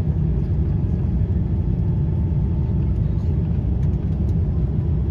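Cabin noise of a Boeing 787-10 on final approach: a steady, loud low rumble of airflow and engines heard from inside the cabin.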